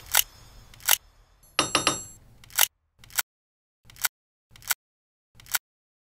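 Giant hollow plastic toy building blocks being pressed onto one another: a series of about eight short, sharp clicks a little under a second apart, with a brief ringing clatter about one and a half seconds in.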